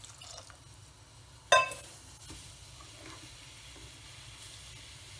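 Water pouring into an aluminium pressure cooker full of sambar broth and vegetables, then the thick liquid stirred with a wooden spoon. A single sharp metallic clink rings briefly about a second and a half in, the loudest sound.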